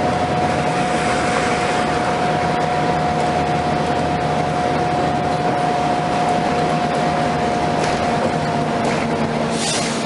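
Cabin sound of a NABI 31LFW transit bus: the Cummins-Westport ISL-G natural-gas engine and Allison transmission running under the steady rush of the HVAC on high. A steady whine dips slightly in pitch about seven seconds in, and a short hiss comes near the end.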